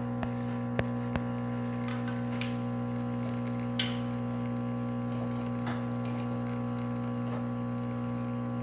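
VBM espresso machine's pump humming steadily as it runs, with a few faint clicks about a second in and a brief hiss near the middle.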